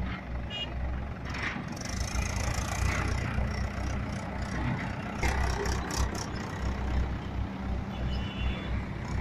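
Mahindra 415 DI tractor's diesel engine running with a low, uneven throb, with scattered knocks and rattles over it.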